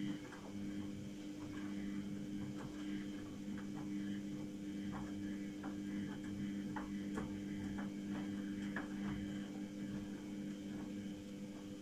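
Samsung Eco Bubble washing machine running during the spin stage of its Daily Wash programme: a steady hum with irregular light ticks and clicks over it.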